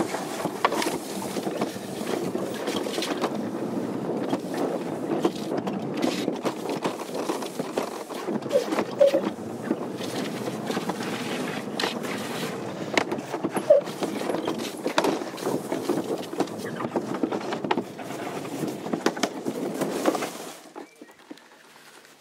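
A summer toboggan sled running down a fiberglass trough run: a steady rushing rumble with frequent clicks and knocks from the sled in the channel. The sound drops away sharply about twenty seconds in.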